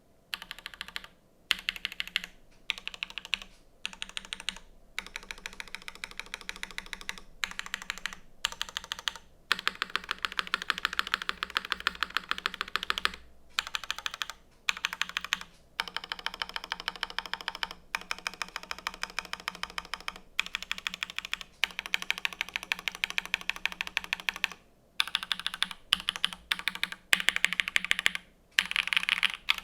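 Typing on a mechanical keyboard: an A7X polycarbonate Nika Art in o-ring mount with stock Gateron RAW linear switches, an aluminium plate and GMK keycaps. It is typed in quick runs of keystrokes broken by short pauses.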